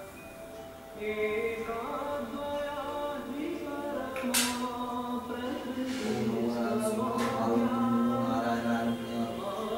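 Devotional puja chanting, a slow sung melody with held notes. A couple of sharp high-pitched strokes cut in over it, about four and seven seconds in.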